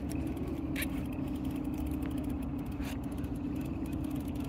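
Small boat's outboard motor running steadily with an even hum, with a few faint clicks on top.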